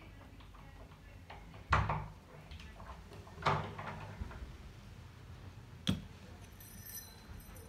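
Metal knocks and rattles of an old euro profile cylinder lock as it is turned with its key to line up the cam and worked out of the door's lock case. There are three, roughly two seconds apart; the last is a sharp click.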